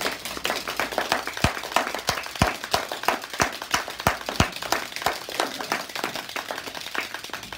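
Audience clapping at the end of a speech: a steady patter of many hands, with a handful of louder, sharper claps standing out in the first half.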